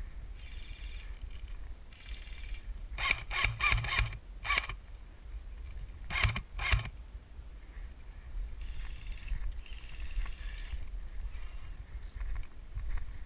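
Airsoft gun shots: a rapid string of about six sharp cracks about three seconds in, then two more a couple of seconds later.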